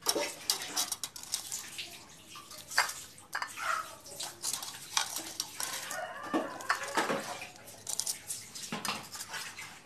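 Utensils and dishes clinking and clattering as fried banana fritters are put onto a plate: a string of irregular sharp clinks and knocks.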